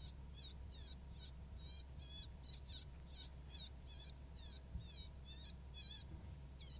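Electronic predator caller playing the "Puffball" baby cottontail distress sound: a steady run of short, high squeals, each falling in pitch, about three a second.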